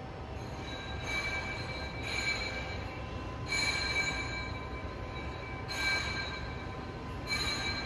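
Portable line boring machine cutting a bore: a steady low drone from the drive, with a high-pitched squeal from the boring tool that flares up every second or two.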